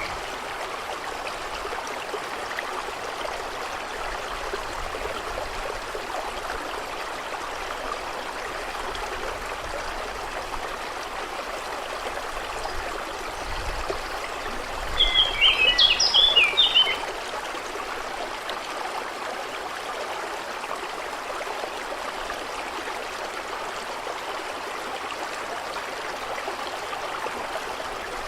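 Stream flowing steadily, with a bird singing a quick burst of chirps for about two seconds around the middle.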